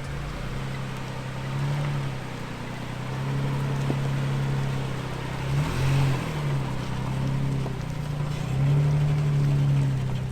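SUV engine running at low revs, swelling and easing off, with a brief dip and rise in pitch about halfway through.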